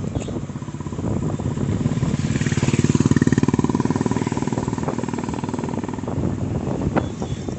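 Motorcycle engine running with a fast, even beat, growing louder to a peak about three seconds in and then easing off.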